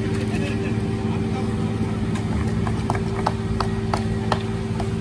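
Diesel engine of an asphalt paver running steadily, with scattered short clinks and scrapes of rakes, lutes and shovels working the fresh asphalt.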